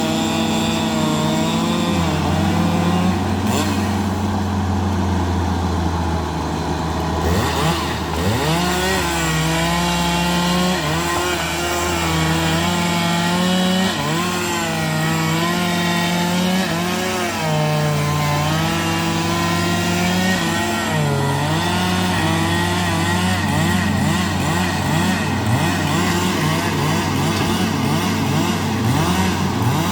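Bulldozer's diesel engine running under varying load, its speed rising and falling again and again.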